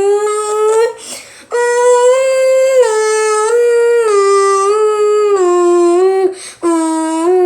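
A voice wailing in imitation of a tornado siren, its pitch rising and falling in steps, broken twice by short pauses for breath.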